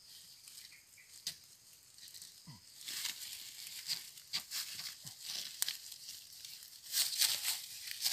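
Dry bamboo leaves and litter rustling and crackling with scattered sharp snaps as someone pushes and works through them, growing busier about three seconds in and loudest near the end.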